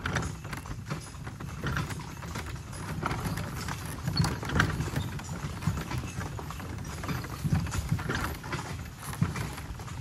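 A cart horse's hooves clip-clopping on a wet dirt road, with the wooden cart's steady low rumble of wheels rolling beneath.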